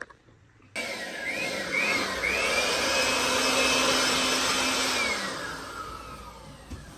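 Handheld corded electric air blower switched on about a second in, its motor whine rising in a few short surges before it runs steadily with a rush of air. About five seconds in it is switched off and the motor spins down, the whine falling and fading.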